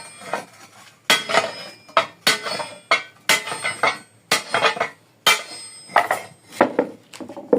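Iron sheet being cut by hand: sharp metal-on-metal strikes about once a second, each followed by a short metallic ringing rattle.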